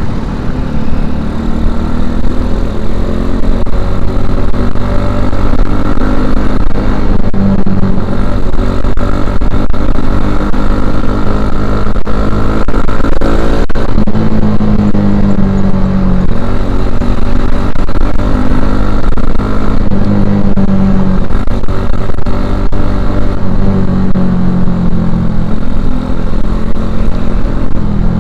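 Suzuki Shogun Axelo R's single-cylinder four-stroke engine running through a stock Suzuki Satria FU 150 silencer while riding. The engine note rises and falls several times as it revs up and eases off.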